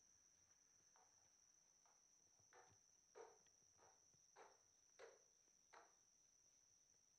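Faint knocks and scuffs from a skateboard being ridden and pushed along a concrete garage floor, about six in a row a little over half a second apart, over a steady high-pitched hum.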